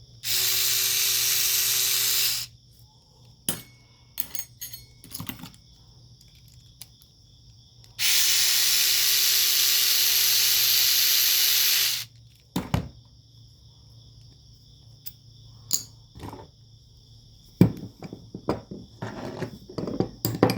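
Two long bursts of a steady hissing whir, the first about two seconds and the second about four, during disassembly of the vintage ratchet. They are followed by scattered light clicks and knocks of small metal ratchet parts being handled.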